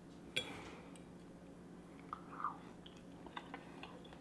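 A person chewing a mouthful of blackened Spanish mackerel, faint, with a sharp click about half a second in and a few soft wet mouth clicks after.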